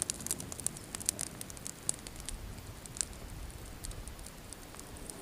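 Small wood campfire crackling, with irregular sharp pops and snaps and a louder pop at the very end.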